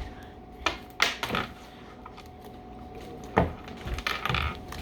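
A few sharp knocks and clicks of containers and utensils being handled and set down on a table, with scattered softer handling noise near the end, over a faint steady hum.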